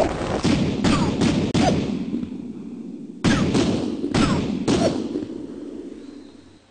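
A quick run of about five pistol shots, then after a pause of about a second and a half another run of about four, each group trailing off in a long fading echo.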